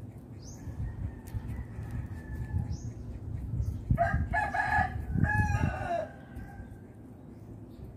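A rooster crowing once, a single call of several linked parts lasting about two seconds, starting about halfway through, over a low rustle of handling.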